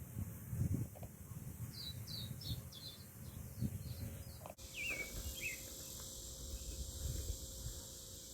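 Songbirds chirping outdoors, short quick calls, over low rustling and handling noise. The sound changes abruptly about four and a half seconds in, and after that a steady high hiss joins a few lower chirps.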